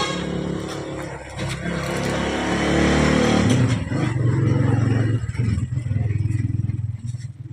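A motor vehicle engine running and revving, loud and close, then cutting away just before the end.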